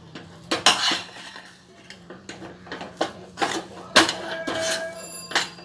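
Steel spoon scraping and knocking against a stainless steel pan while stirring a thick paste of ground sesame and jaggery syrup: irregular scrapes and clinks, a few each second, the sharpest about four seconds in.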